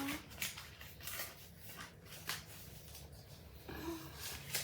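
Paper being handled and cut with scissors: several short, crisp snips and rustles.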